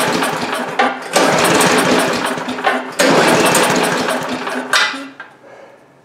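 Chinese Honda-clone single-cylinder engine on a Cub Cadet leaf blower being cranked by its recoil pull cord with a compression gauge in the spark plug hole, so it spins over without firing. The tail of one pull, then two more pulls about two seconds apart, each a rapid chugging that dies away; the gauge shows low compression, about 70.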